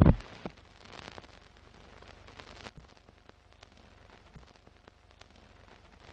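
Sound effects for an old film-leader countdown: a heavy low hit fading away at the start, then faint crackle of old film with scattered sharp pops.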